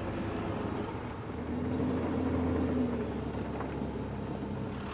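Engine of a loaded mulch blower truck running as it turns in off the road, with a steady low rumble, louder for a second or so about two seconds in.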